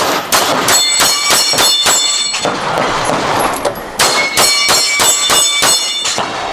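Rapid pistol shots at steel targets, each hit followed by the bright ringing clang of the steel plate, in two quick strings of about seven or eight shots with a pause of over a second between them.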